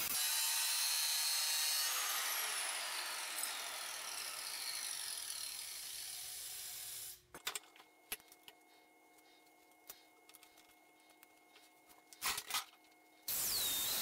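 Angle grinder cutting a steel circular saw blade, then winding down with a falling whine over several seconds. A quiet stretch follows with a few light taps and clicks, and the grinder starts cutting again near the end.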